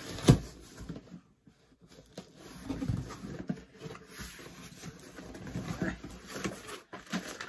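A sharp knock just after the start, then irregular rustling, crinkling and small clicks of a cardboard box and its packaging being opened and handled.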